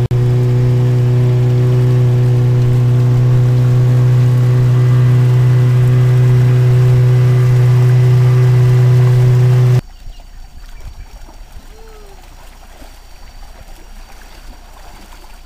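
A steady engine drone with a strong low hum and several steady overtones, cutting off suddenly about ten seconds in and leaving a much quieter, uneven background noise.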